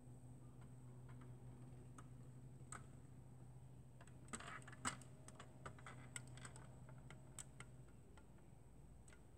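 Faint scattered plastic clicks and taps from a finger handling the cockpit parts of a 1:18 scale diecast Ford GT90 model, busiest about halfway through, over a low steady hum.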